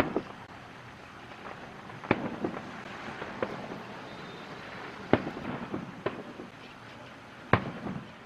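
Aerial fireworks shells bursting overhead: four main bangs about two to three seconds apart, the last two the loudest, with smaller pops and ringing echoes between them.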